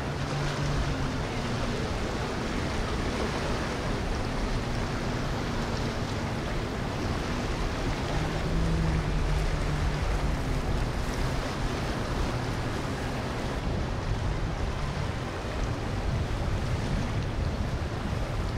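Boat engines humming, fading in and out under a steady wash of water and wind noise on the microphone.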